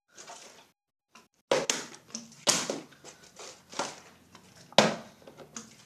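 Plastic water bottles, partly filled with water, being flipped and landing on a tiled floor: a string of sharp knocks, the loudest about five seconds in.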